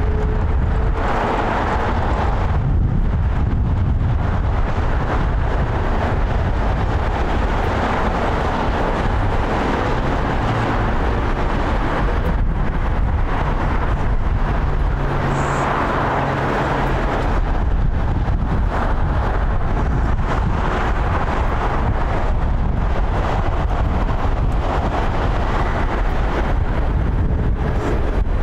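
Wind buffeting the microphone over a steady, broad outdoor rumble, loud and unbroken, with no clear rise or fall of a passing jet.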